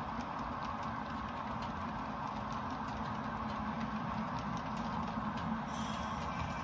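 HO scale model diesel locomotives running on a layout, their sound giving a steady diesel engine hum, with many quick light clicks of the model train's wheels on the track.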